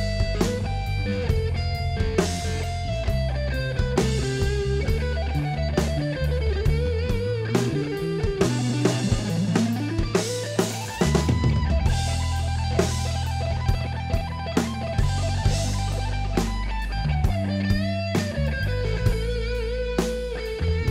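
Rock'n'roll band music: electric guitar carrying a melody that slides up and down in pitch, over bass guitar and a drum kit keeping a steady beat.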